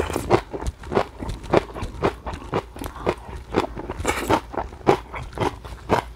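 A man chewing a mouthful of spicy stir-fried squid and pork: a steady rhythm of wet chewing and crunching, about three chews a second.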